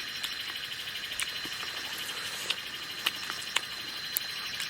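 A steady chorus of insects trilling in fast, even pulses, with a thin high tone, broken by about half a dozen sharp clicks.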